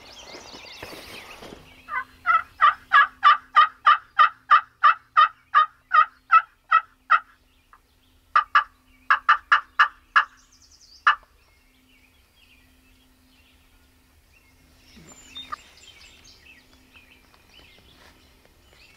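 Wild turkey yelping: a long, even series of about seventeen yelps at roughly three a second, then after a short pause a shorter, broken run of about eight more.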